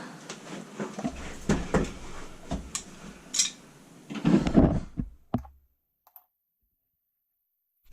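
Metal wrenches clicking and knocking against a threaded pipe fitting as the water heater expansion tank connection is tightened by hand, with a busier, louder patch of handling about four seconds in. The sound cuts off to dead silence about five and a half seconds in.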